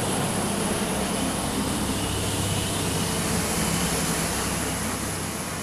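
Chevrolet Super Brigadier dump truck's diesel engine running as the truck passes and pulls away, its steady hum easing off near the end, with tyre noise on the wet road.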